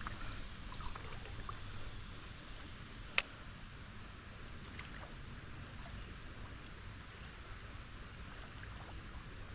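Steady creek water flowing, with a single sharp click about three seconds in.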